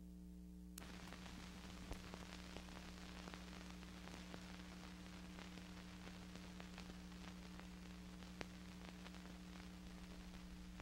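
Faint steady electrical hum, joined about a second in by hiss with scattered crackles and pops, the surface noise of an old film transfer with no recorded sound. Two pops stand out, about two seconds in and near eight and a half seconds.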